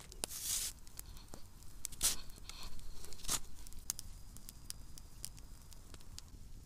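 Wood campfire crackling, with sharp little pops scattered throughout. Louder rustling crunches come about half a second, two seconds and three seconds in, as the steak skewered on a stick is handled and propped over the fire.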